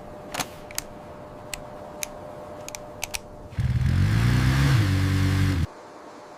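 A few light, sharp clicks, then a motor sound that rises in pitch for about a second, holds steady, and cuts off suddenly after about two seconds.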